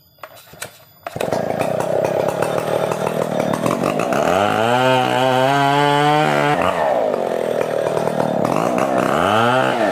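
Stihl 070 two-stroke chainsaw, coming in suddenly about a second in and running loud. It revs up to full speed twice, holding high for a couple of seconds the first time, and drops back after each.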